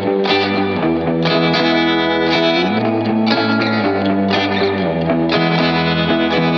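Background music with guitar, sustained notes and chords changing every second or so.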